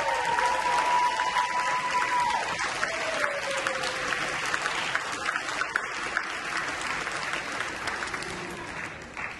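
Theatre audience applauding after a ballet number, with one long, falling cheer from someone in the crowd over the first few seconds; the clapping thins out near the end.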